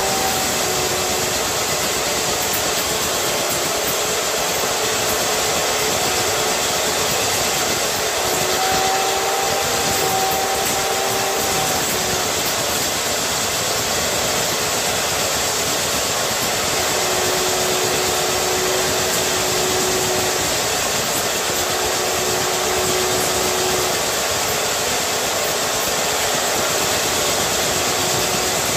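Hilti diamond core drill on a rig stand running steadily as its 180 mm core bit is fed into a wall: an even motor whine over a grinding hiss, with faint tones that come and go.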